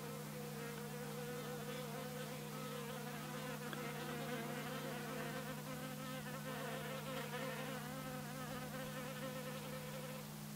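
Honeybees buzzing, a faint drone whose pitch wavers up and down, over a steady low hum.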